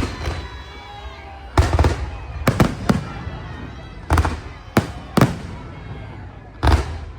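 Aerial firework shells bursting overhead: a series of loud, sharp bangs about one a second, some doubled, each followed by a crackling, echoing tail.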